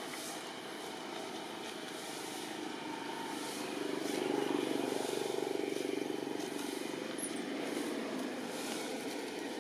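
A motor vehicle passing in the background, swelling about four seconds in and fading again over steady outdoor noise.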